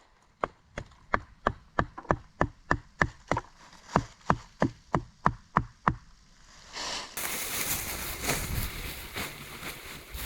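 A run of about seventeen sharp knocks in a steady rhythm, about three a second, that stops around six seconds in. A steady rushing noise follows.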